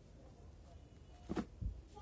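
Two quick thumps about a third of a second apart, over a faint low hum: a pair of canvas sneakers being set down on a cardboard shoebox.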